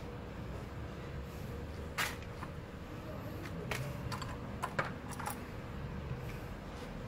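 Scattered light clicks and clinks of small metal brake parts and tools being handled and set down, with a plastic bag rustling among them. There are about half a dozen, the loudest about two seconds in and a cluster near the end. A steady low hum runs underneath.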